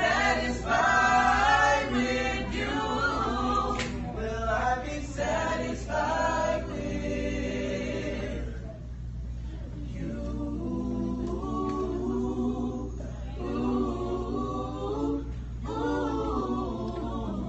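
Small gospel vocal group singing unaccompanied in harmony, in sung phrases with a short break about halfway through, over a steady low hum.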